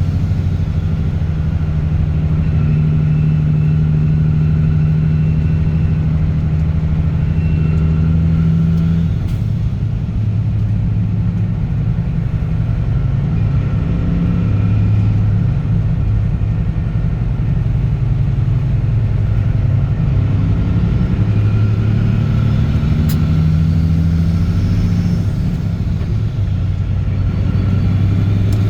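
Straight-piped 625-horsepower Caterpillar C15 ACERT diesel engine in a truck, running steadily while driving. Its exhaust drone drops in pitch about a third of the way in, then shifts up and down a few more times as engine speed changes.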